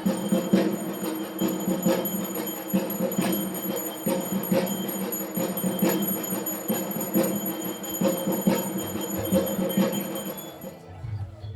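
Music with percussion and ringing, bell-like tones, which thins out near the end.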